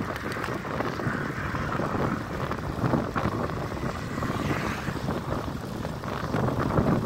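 Wind rushing over the microphone of a handlebar-mounted camera on a moving bicycle, with road rumble from the tyres on asphalt. A car passes in the opposite lane about four to five seconds in.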